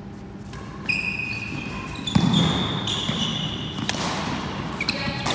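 Badminton rally: rackets striking a shuttlecock with a few sharp hits about a second apart, and sports shoes squeaking on a wooden sports hall floor as the players move.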